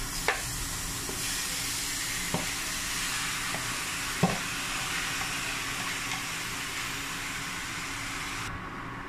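Marinated pork hitting a hot non-stick pan on an induction cooker and sizzling steadily, with a few knocks of a plastic spatula against the pan and container, the loudest about four seconds in. The sizzle cuts off suddenly near the end.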